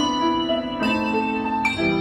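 Bells played in a steady rhythm: a fresh note struck a little under once a second, each ringing on and overlapping with lower sustained tones.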